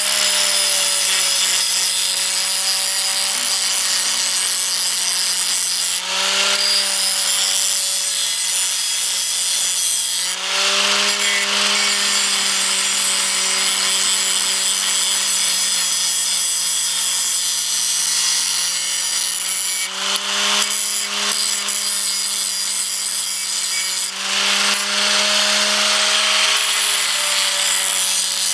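Electric angle grinder running at speed and grinding galvanized steel, taking the zinc coating off where a weld will go and narrowing the piece to fit a harrow eye. A steady motor hum under a harsh grinding hiss, the pitch and hiss shifting several times as the grinder is pressed on and eased off the metal.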